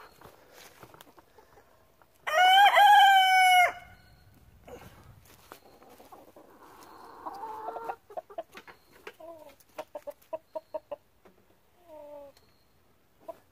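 Domestic rooster crowing once, loud and close, for about a second and a half, about two seconds in. From about eight seconds on, chickens cluck in short, quick calls.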